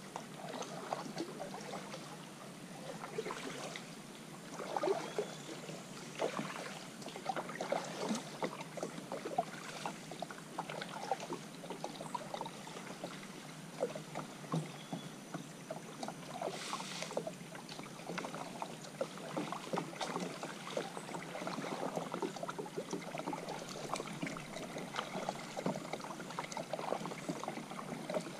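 Kayak paddle dipping and splashing in calm water, stroke after stroke, with drips and small irregular splashes between the strokes.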